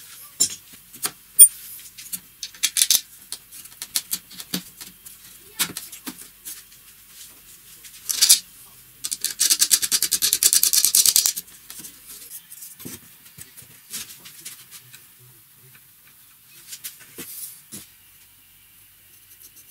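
Hand-work on small steel hardware: scattered clicks and taps of a bolt, washer and nut being fitted through a wooden pivot, then a rapid, even run of ticks for about two seconds near the middle as the nut is spun along the bolt's thread.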